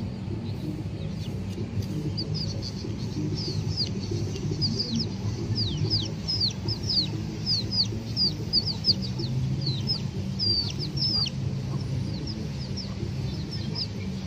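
Young chickens peeping: rapid, short, high-pitched falling peeps from about two seconds in until near the end, over a steady low rumble.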